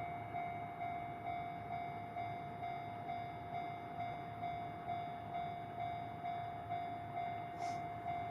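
Japanese level-crossing warning bell ringing steadily, a repeated electronic ding at about two strikes a second. It signals that a train is approaching the crossing.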